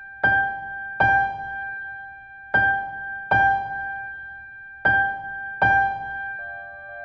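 Background music: a single high keyboard note struck twice in quick succession, with the pair repeating every couple of seconds and each note ringing out and fading. A lower note joins near the end.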